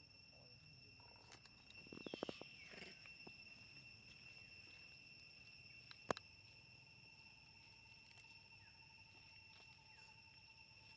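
Steady, high-pitched insect chorus droning throughout, with a short cluster of rustles and a brief falling squeak about two seconds in, and a single sharp click about six seconds in.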